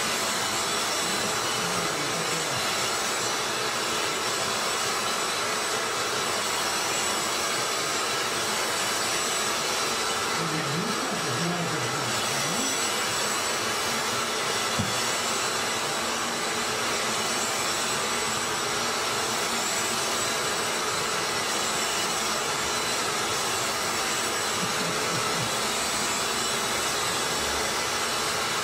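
Vacuum cleaner running steadily, its nozzle being drawn over a cat's fur.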